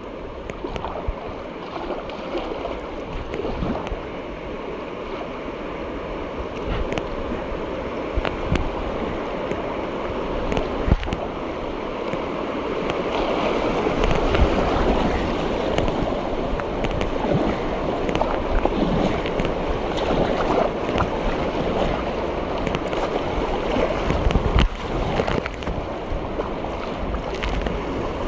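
Whitewater rushing around a kayak as it paddles into a rapid, getting louder about halfway through, with short sharp splashes from the paddle blades.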